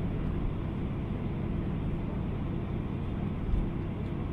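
Airbus A319 cabin noise while taxiing after landing: a steady low rumble of the engines at idle with a faint steady hum, and a brief low thump about three and a half seconds in.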